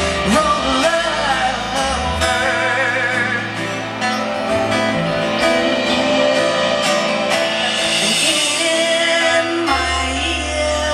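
Live rock band playing, a woman's voice singing over guitars, keyboards, bass and drums, with a note held in a wide vibrato a couple of seconds in.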